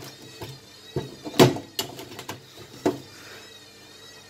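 A few sharp knocks and clicks from hands handling an open microwave oven, the loudest about a second and a half in.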